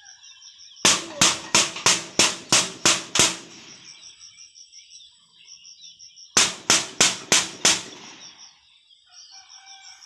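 A stick beaten against a handheld corrugated metal sheet as a bird scarer to drive sparrows off the rice: a run of about eight clanging strikes, about three a second, then a pause and a second run of five.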